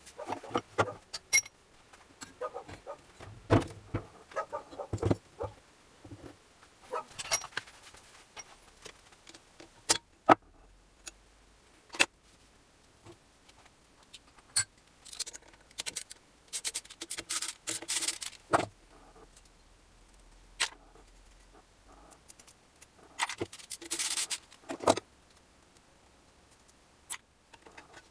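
Metal hand tools and small engine parts clinking and clattering as they are handled and set down on a workbench: scattered sharp taps and clicks, with two spells of rapid metallic jingling, one a little past halfway and one near the end.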